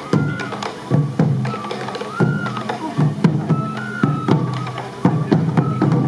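Sansa odori festival music: taiko drums beating about once a second, often with a quick second hit, under a bamboo flute (fue) melody of held, gliding notes.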